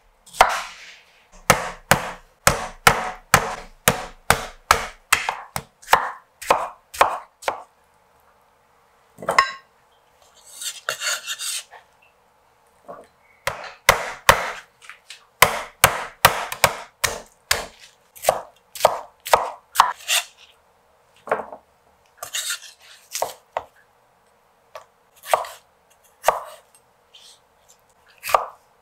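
A Chinese cleaver chopping cucumber on a wooden cutting board: sharp knife strikes against the board come in quick runs of about two to three a second, broken by short pauses. Between the runs there are brief scraping sounds.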